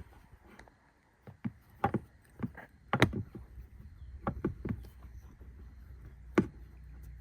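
Irregular clicks and knocks of a hand tool and metal lock parts being handled as a Schlage deadbolt is unscrewed and worked loose, the sharpest knocks about three and six and a half seconds in. A low steady hum comes in near the end.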